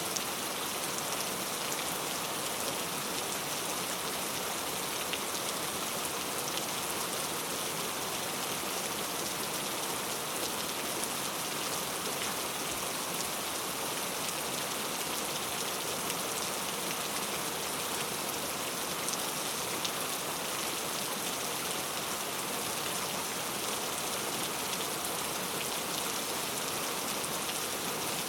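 Heavy rain falling steadily, a dense even hiss of drops hitting a surface with fine scattered patters, unchanging in strength.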